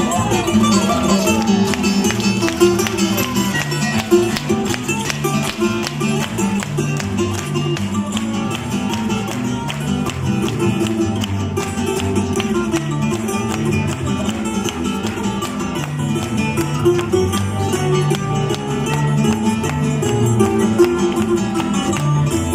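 Background music: the instrumental break of a fado song, with plucked guitars playing a steady accompaniment and no singing.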